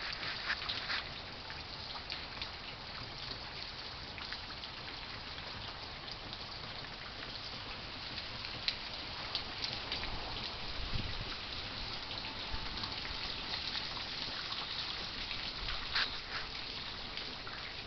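Steady rain falling, with individual drops hitting close by now and then as short ticks.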